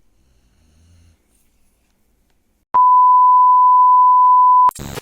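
A loud, steady, high electronic beep tone, about two seconds long, starting a little past the middle and cut off suddenly, followed by a short burst of noise. The first second holds only a faint low sound.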